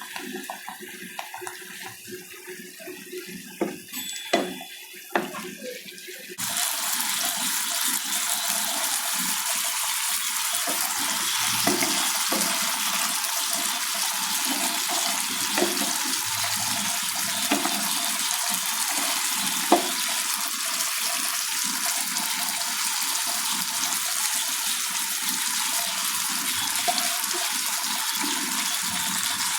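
A few light knocks, then about six seconds in a steady sizzling hiss starts abruptly: fish sambal gravy cooking in the pan, with occasional faint clicks.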